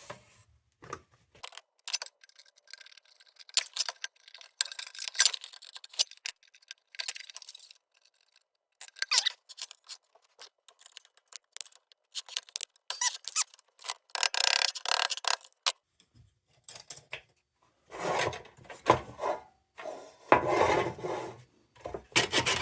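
Metal of an Embury Air Pilot kerosene lantern scraping and squeaking in irregular bursts as its fuel fount is worked back onto the frame.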